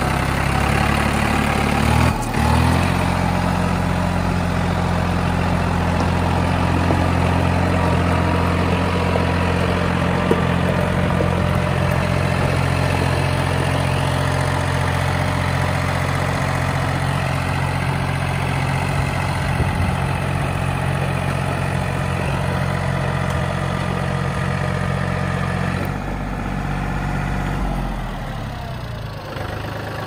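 John Deere compact tractor's diesel engine running steadily as the tractor drives past. Its note steps up about two seconds in, then shifts and fades near the end as the tractor moves away.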